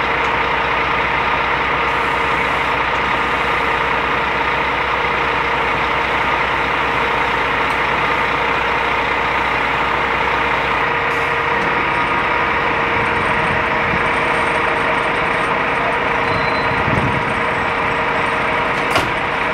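Fire brigade truck engine running steadily, with a constant whine over the engine noise; the low rumble thins out about halfway through.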